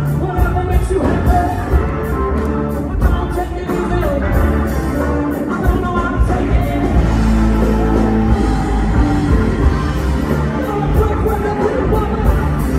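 Live rock band playing loud, with a heavy low end, a steady drum beat and a singing voice, recorded from the audience.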